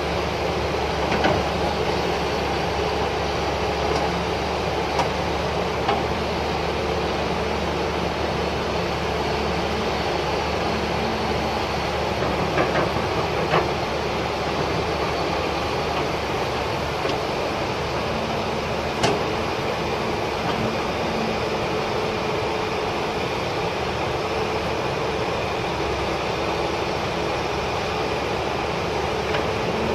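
Caterpillar hydraulic excavator's diesel engine running steadily over the rush of river water, with a few sharp knocks as the bucket works the load into the dump truck.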